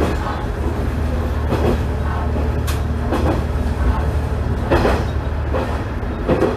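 Tenryu Hamanako Railroad TH9200 diesel railcar running along the line, heard from inside the car: a steady low engine and running drone, with a clack from the wheels on the rail about every one and a half seconds.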